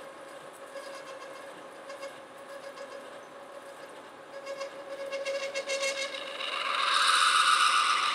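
Metal lathe running with a steady hum while a boring bar is fed into the bore of a spinning metal disc. About six and a half seconds in, a loud high ringing from the cut builds up and stays loud through the last second or so.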